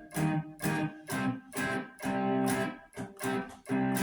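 Electric guitar, a Strat-type played through a Fender solid-state amp, picking short chord stabs about twice a second, with one chord held longer a little past the middle.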